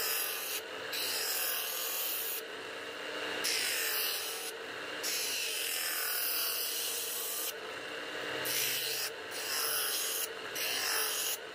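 Continuous rasping of a tool working against material, with short breaks in the hiss every second or two.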